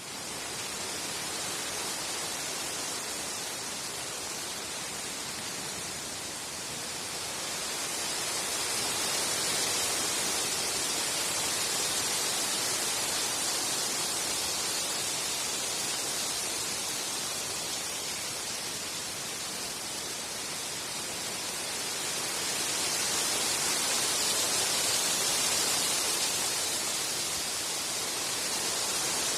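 Wind blowing through trees, a steady rushing hiss of leaves that swells in two gusts, about a third of the way in and again near the end.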